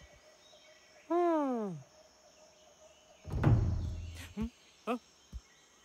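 Cartoon sound effects: a single falling voice-like call about a second in, then a heavy low thud with a rumbling tail midway, followed by a few short pitched blips.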